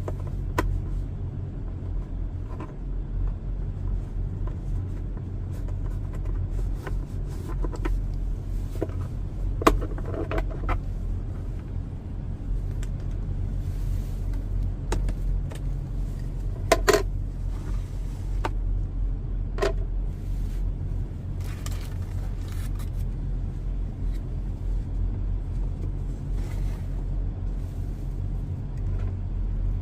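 Steady low rumble with scattered sharp clicks and knocks, the sound of plastic trim and the filter cover being handled while a cabin air filter is swapped, the loudest knocks about ten and seventeen seconds in.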